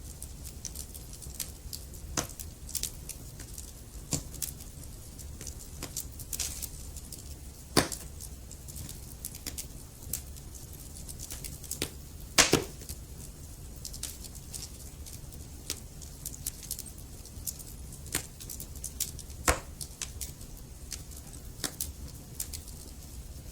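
Wood fire in a fireplace crackling, with irregular sharp pops from the burning logs over a steady low rumble of the flames; the loudest pops come about 8 seconds in, at about 12 seconds, and near 19 seconds.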